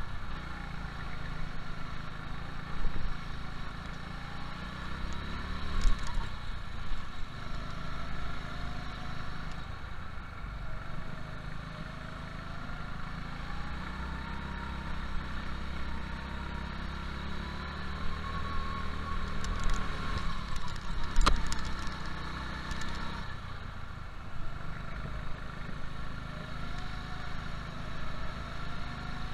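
Go-kart engine running hard on an indoor circuit, heard from the kart itself, its pitch rising and falling as the driver accelerates and lifts through the corners. A few sharp knocks cut in, the loudest about 21 seconds in.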